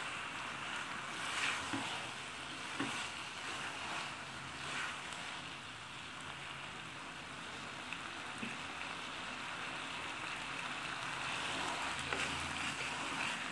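Macaroni and vegetables sizzling in a hot pan, with a few spatula stirring strokes through the food in the first few seconds.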